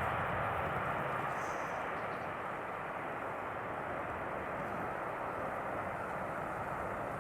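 Jet noise from the twin Rolls-Royce Trent XWB turbofans of an Airbus A350-1000 at takeoff thrust as it departs. A steady rushing sound that eases slightly over the first few seconds and then holds.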